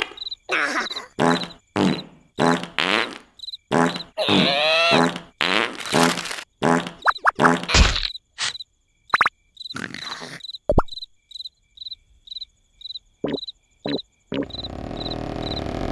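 Crickets chirping in a steady pulse, about two chirps a second, over short, wordless cartoon-character vocal noises (grunts and babbling) that stop about eight seconds in. A louder low, steady rumble comes in near the end.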